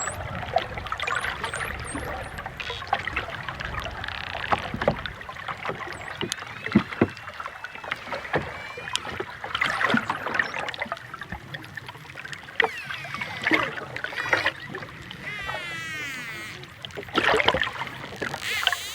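Dolphins vocalising under water: whistles that sweep and waver up and down in pitch, mixed with sharp clicks and quick click trains.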